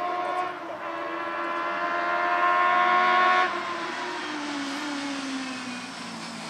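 A 1300 cc touring race car's engine accelerating, its pitch climbing, then lifting off sharply about three and a half seconds in and slowing for the corner, the note falling. Tyres hiss through spray on the wet track.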